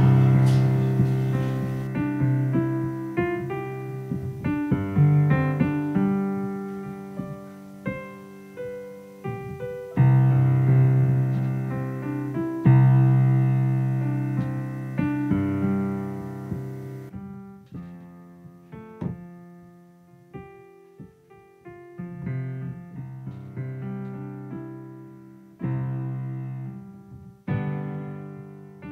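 Background piano music: unhurried notes and chords, each struck and left ringing until it fades.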